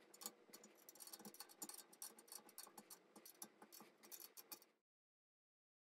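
Faint, irregular metallic clicks and light rattles of an Allen key and a wrench handling a bolt, washer and nut on a metal bed-frame rail, stopping abruptly about five seconds in.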